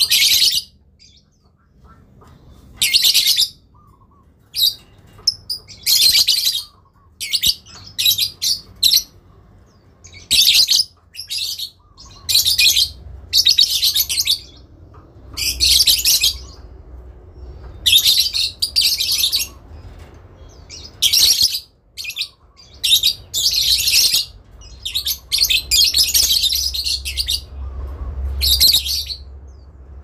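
Lovebird's shrill chattering song, the long 'ngekek' chatter, in bursts of half a second to a second coming every second or two. After about twenty-three seconds the bursts run together into a longer stretch of chatter.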